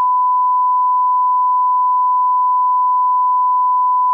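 Steady 1 kHz test tone, the reference tone that goes with colour bars: one pure, unbroken beep held at a constant loud level.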